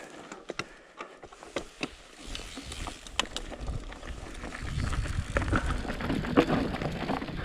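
Mountain bike riding down a rough dirt trail, heard from the rider. Scattered clicks and knocks come first; from about two seconds in, tyre rumble and the rattle of the bike over rocks build and get louder after about five seconds.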